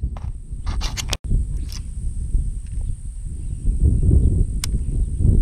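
Low rumbling wind noise buffeting an action camera's microphone, with a few sharp clicks and knocks from fishing gear being handled on a plastic kayak, and a thin steady high hum behind.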